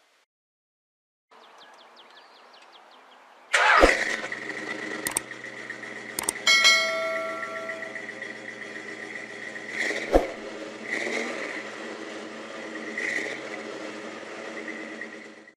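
Dodge Super Bee V8 firing up with a loud burst about three and a half seconds in, then idling steadily. A ringing chime sounds a few seconds after the engine catches.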